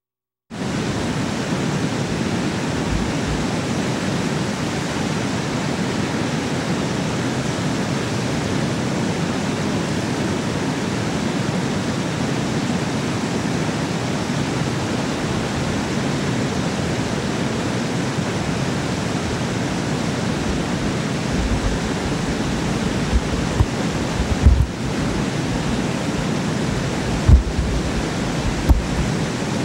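Dam spillway in full flow, white water rushing through the gates in a steady, even roar of water. A few short low thumps near the end.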